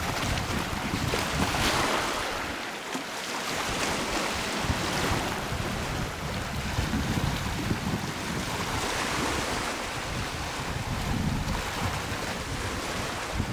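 Sea surf washing in a steady rush that swells and fades every few seconds, with wind gusting over the microphone.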